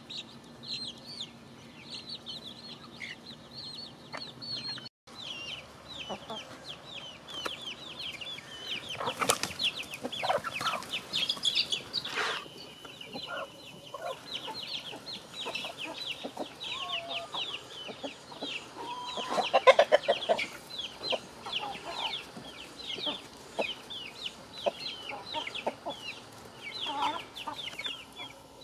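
A flock of backyard chickens clucking and calling, with a louder squawking call about two-thirds of the way through. A rapid, high, continuous chirping runs behind them.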